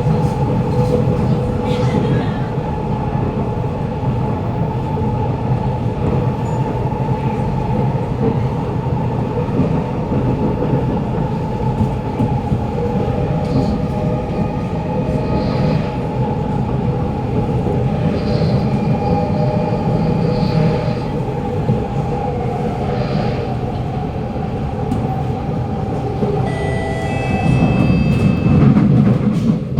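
Interior of a Kawasaki Nippon Sharyo C751B metro car running, with a steady rumble and whine. Near the end, a high-pitched wheel screech sets in for about three seconds as it slows, typical of this car's worn wheels.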